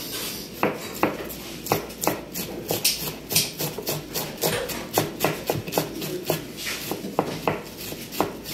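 Kitchen knife shredding a cabbage on a plastic cutting board: a steady run of quick knife strokes tapping the board, about three a second.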